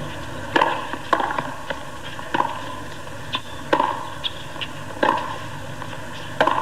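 Tennis rally: a ball struck back and forth by rackets, sharp pops about every second and a half, with softer bounce thuds between them, over a steady low hum of stadium ambience.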